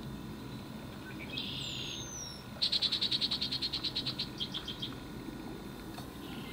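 Wild animal calls: a loud, high trill of evenly spaced notes at about ten a second, lasting about two seconds from a little before the middle. Before it come a shorter buzzy call and a brief falling whistle.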